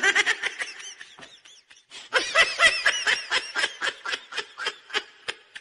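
A person laughing in quick, high-pitched giggles. A short run at first dies down, then a louder, longer fit of laughter starts about two seconds in and fades out near the end.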